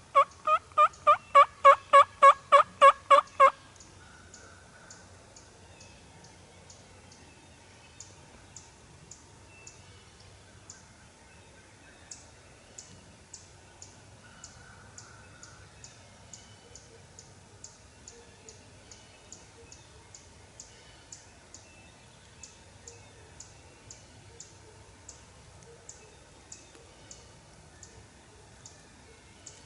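A run of about fourteen evenly spaced hen-turkey yelps on a Primos Power Crystal pot call, a slate-style friction call played with a striker, lasting about three and a half seconds. Faint high ticking follows, about once or twice a second.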